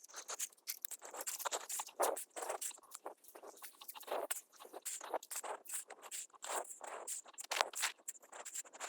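Car jack being worked to lift a car: a quick, uneven run of small clicks and scrapes, several a second.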